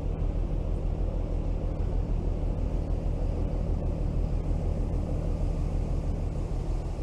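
Engine of a passing container ship, a steady low drone.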